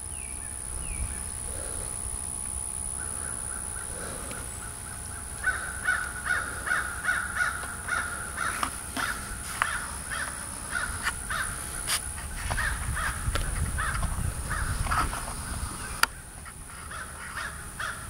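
An animal calling over and over in short harsh notes, about two or three a second, starting a few seconds in and keeping on, with one sharp click about sixteen seconds in.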